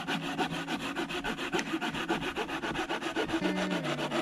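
Hand saw cutting through a dry branch of deadwood, quick even back-and-forth strokes, several a second.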